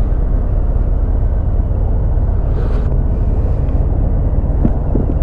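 Harley-Davidson Fat Bob's Milwaukee-Eight 107 V-twin idling at a stop, a steady, loud, low pulsing rumble.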